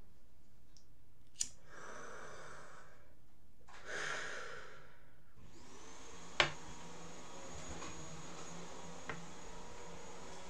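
A person breathing out in two long rushes of air, the second louder and sigh-like, with a short click before them and a sharp click a little after; a faint steady high whine and hum follow the second click.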